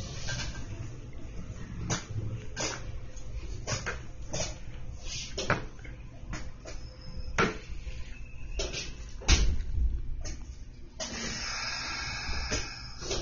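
Interior of a commuter train car standing at a station stop: a steady low hum from the car with scattered knocks and clicks, and a short hiss about eleven seconds in.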